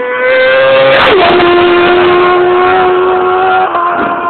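Superbike racing motorcycle passing close at full speed. Its engine note climbs as it approaches, drops sharply in pitch as it goes by about a second in, then holds a steady high note as it pulls away, stepping down slightly near the end.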